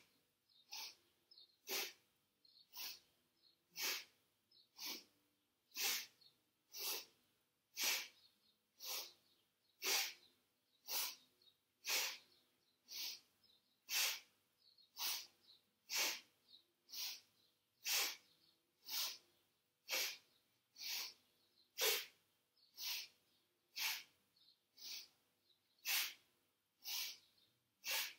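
A person's forceful, audible breathing through the nose in a steady rhythm, about one sharp breath a second, inhaling and exhaling in turn. Each breath is timed to a seated yoga twist from side to side.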